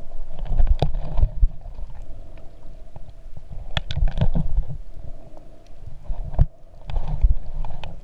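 Underwater camera audio of water sloshing and rumbling against the housing while snorkeling, swelling in three surges about three seconds apart, with sharp clicks.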